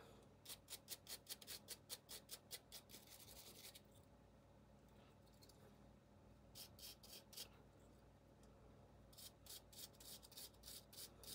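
Quick, quiet scrubbing strokes on a small steel pin from an AR-15 bolt carrier group as it is cleaned of carbon, in three spells, the first the longest.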